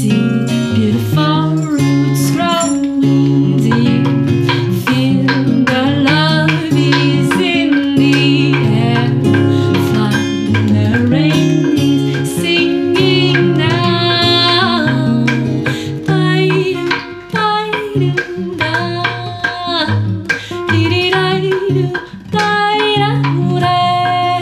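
Acoustic guitar and a singing voice, with the sharp clacks of a devil stick struck by hand sticks keeping a rhythm as percussion.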